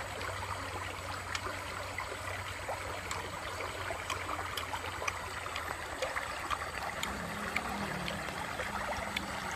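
Shallow stream running over stones, a steady babble with many small ticks of trickling water.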